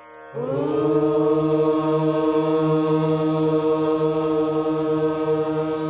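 Voices chanting in unison on one long, steady held note, like a meditative mantra, beginning about a third of a second in and sustained without a break.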